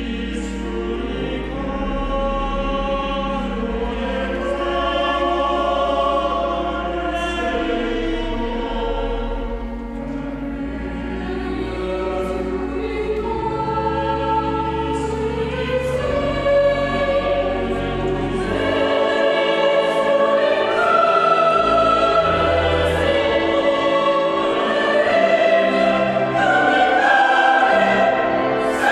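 Mixed choir of men's and women's voices singing a sacred choral piece in several parts, growing louder toward the end. Low held notes sound beneath the voices for the first two-thirds, then drop away.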